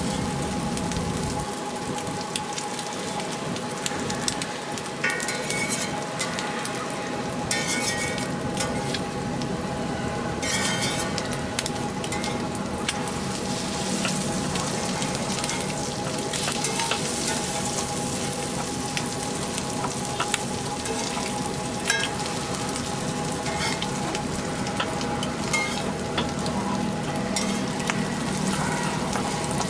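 Egg dish frying and sizzling in oil on a hot pan, with a metal spatula stirring, scraping and tapping against the pan throughout.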